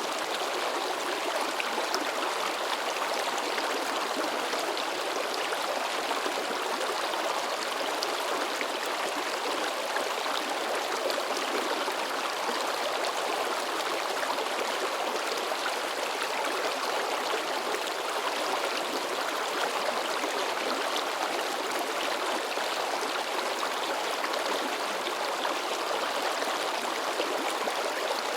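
Shallow river babbling and splashing over rocks, a steady rushing with lively splashes.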